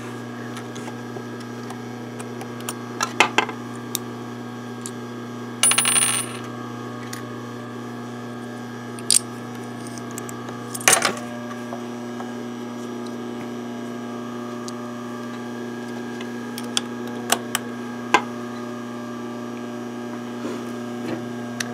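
Sewing machine's metal bobbin and bobbin case handled during a bobbin change after the bobbin thread ran out: scattered light metallic clicks and clinks, with a short rattle about six seconds in, over a steady low electrical hum.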